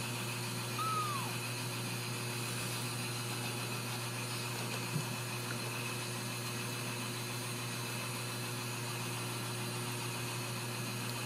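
Steady low hum with hiss throughout. A faint, short kitten mew falls in pitch about a second in, and there is one soft tap near the middle.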